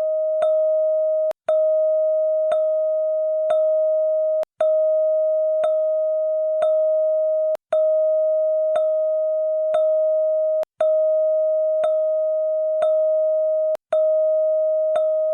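Electronic police-siren sound effect: one steady high tone that does not glide. It restarts with a click about once a second, and a short gap breaks it after every third stroke.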